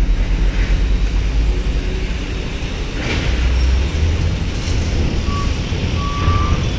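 Diesel trucks and a bus running in a ferry-loading queue, with a steady low engine rumble. Two short electronic beeps come near the end.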